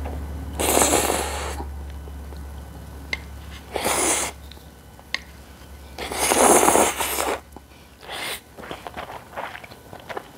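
Naengmyeon cold noodles slurped loudly, four slurps, the longest about a second, followed near the end by quick small wet clicks of chewing.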